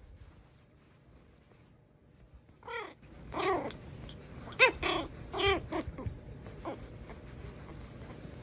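Pomeranian puppy giving a string of short, high-pitched yips and little barks while play-fighting, starting about three seconds in, about seven in all, each rising and falling in pitch.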